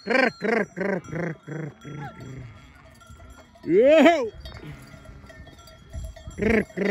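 Flock of sheep on the move, bleating over the steady ringing of their bells: a run of short calls that fades away, one long rising-and-falling bleat midway, and another run of short calls near the end.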